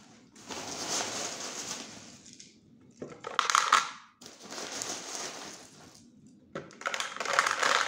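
Plastic packet of expanded clay pebbles being handled and opened, crinkling and rustling in four bursts, with the pebbles shifting inside.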